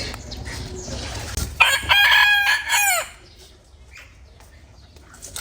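A rooster crowing once, about a second and a half in: one loud call, held and then falling away at the end.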